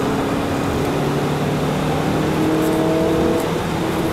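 Renault Clio's engine heard from inside the cabin, pulling under acceleration with its note climbing steadily, over road and wind noise.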